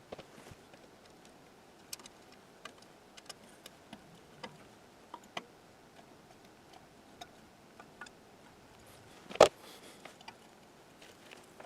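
Scattered light clicks and taps of small objects being handled on a workbench, irregular and a second or so apart, with one much louder knock about nine and a half seconds in.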